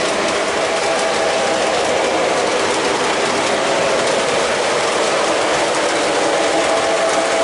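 Lionel O-gauge train, a LionChief Plus RS-3 diesel locomotive pulling aluminium passenger cars, running steadily on three-rail track: a continuous rolling rumble of wheels on the rails with a steady hum.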